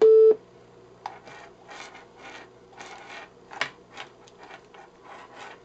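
A single short electronic beep from the SaberSD sound module's speaker, a steady tone, the loudest sound; it is the module's cue to start swinging for the motion calibration. Then irregular rubbing and rustling as the circuit board and its wires are waved about by hand.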